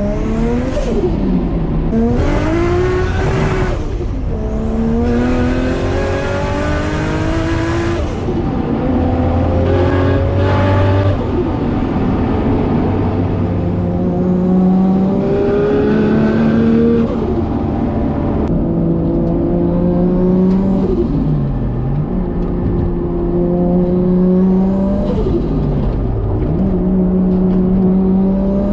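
BMW N54 twin-turbo inline-six exhaust, straight-piped apart from 335is mufflers, heard from a microphone at the rear license plate. The engine revs up several times, each rise ending in a sharp drop, with steadier stretches between. Turbo whistle rises high above the exhaust note on the pulls.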